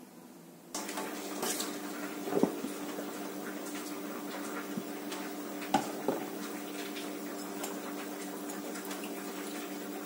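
Kitchen tap running into a ceramic pot held in a stainless steel sink, starting about a second in. The pot knocks against the sink three times: once about two and a half seconds in, then twice in quick succession around six seconds.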